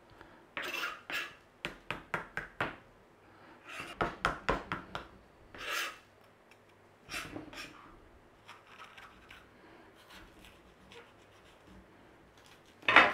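A knife cutting and scraping pith and seeds from red bell pepper pieces on a cutting board: short strokes in quick clusters, thinning to a few faint ones in the second half, with one louder stroke near the end.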